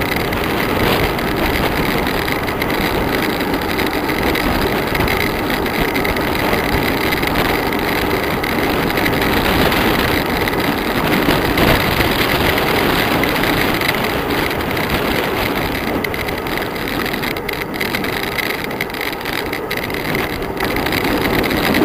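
Steady rushing wind and road noise on a moving microphone, descending a mountain road at speed.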